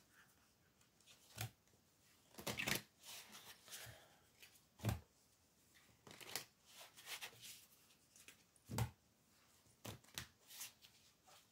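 A tarot deck being shuffled by hand: soft, irregular card rustles in short bursts, with a few sharper taps from the cards, around five seconds in and again near nine seconds.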